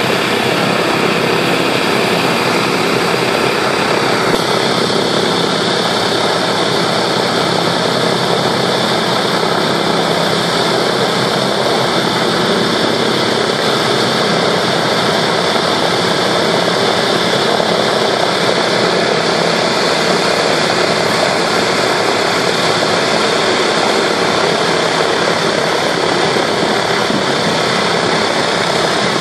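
Boeing B-17 bomber's Wright R-1820 Cyclone radial engines running at idle just after start-up. The sound is a steady, heavy drone, and its tone shifts slightly about four seconds in.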